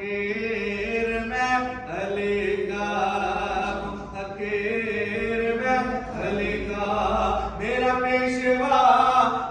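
A man's voice chanting a devotional Urdu manqabat in praise of Ali, in long held notes that change every second or two.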